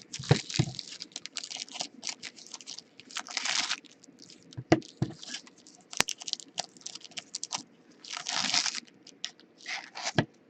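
Trading cards being handled and slid against one another as a freshly opened pack is looked through: irregular clicks and snaps with short scraping rustles, two of them longer slides of about half a second.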